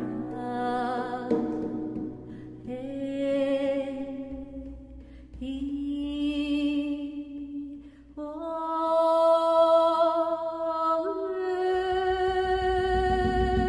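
A woman singing a traditional Occitan song in long, slow held notes with vibrato, the phrases stepping higher in pitch toward the end, over a faint low rumble that swells near the end.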